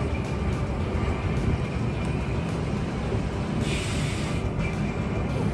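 Heritage boat tram running along the rails, a steady rumble of wheels and motors, with a brief hiss about two-thirds of the way through.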